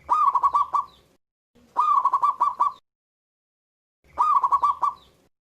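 Zebra dove (perkutut) cooing in three separate phrases. Each phrase opens with a rising-and-falling note, then runs into a quick string of short coos.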